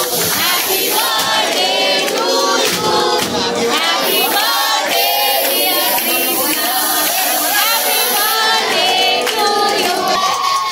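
A crowd singing a birthday song together in chorus. Aerosol party-foam spray cans hiss through the middle of it for about four seconds.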